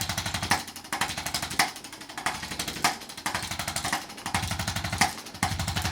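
Chiropractic adjusting instrument rapidly tapping against the neck to vibrate the joints and loosen scar tissue. It runs in rapid runs of about a second with brief pauses, and a few louder clicks.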